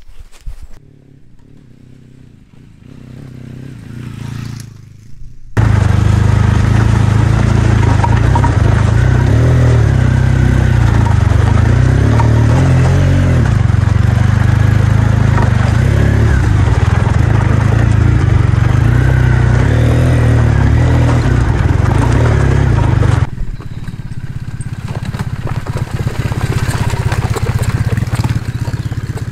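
Triumph Bonneville parallel-twin motorcycle engine running as the bike is ridden along a dry, rough dirt track. A loud rumble with rattling and scraping noise starts suddenly about five seconds in and cuts off abruptly near the three-quarter mark, leaving the engine quieter.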